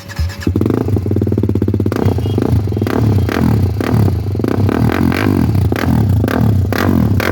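TVS Apache RR 310 motorcycle's single-cylinder engine running loud through its exhaust, picking up about half a second in and revved repeatedly, with a fast firing beat and sharp cracks through the second half.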